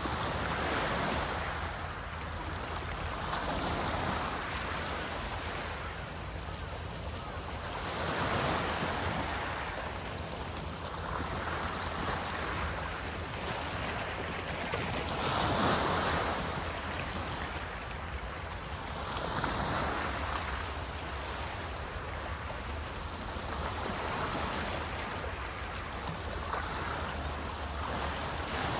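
Small waves breaking and washing on a shore, the surf noise swelling and fading about every four seconds, over a steady low rumble.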